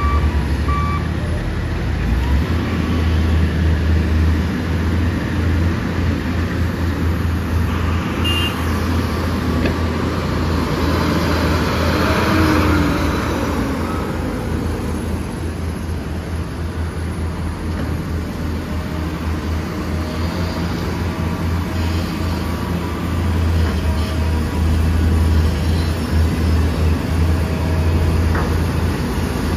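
Heavy diesel trucks running with a steady, deep engine rumble, with a reversing beeper pulsing for about the first second. A broad rushing swell rises and fades for a few seconds around the middle.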